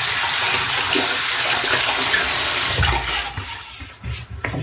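Bathroom sink tap running steadily, then turned off about three seconds in, followed by a few soft knocks.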